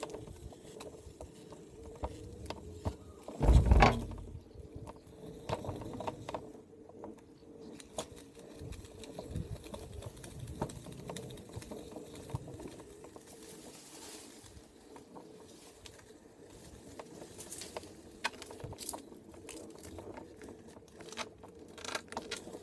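G-Board self-balancing hoverboard rolling over paving slabs: a faint steady hum with scattered small rattles and knocks from the board and wheels, and one loud thump about three and a half seconds in.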